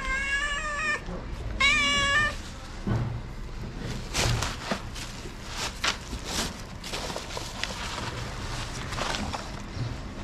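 A cat meows twice in the first couple of seconds, the second call the louder. Then a plastic bag rustles and crackles in short bursts as a hand opens it and the cat noses in.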